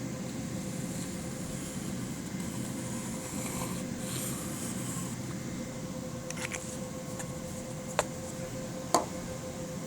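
Steady background hum with a faint held tone. About four seconds in, a brief hiss from an aerosol can of CA glue accelerator. Two sharp clicks come near the end.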